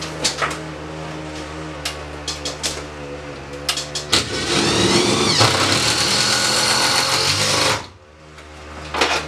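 A few sharp taps, then a cordless drill spins up with a rising whine and runs for about three and a half seconds, driving a screw into a floor truss where it passes through the truss's metal plate, and stops suddenly. A steady low hum runs underneath.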